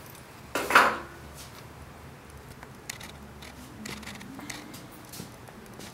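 A short, loud clatter of knocks about half a second in, then a few light clicks and clinks scattered through the rest.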